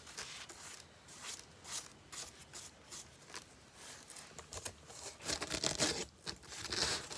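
Paintbrushes dabbing and scraping paint onto cardboard: irregular taps and scratchy strokes, busier and louder near the end.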